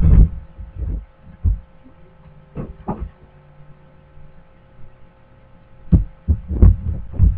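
Irregular dull low thumps, a few at a time with a quiet stretch in the middle, over a faint steady electrical hum.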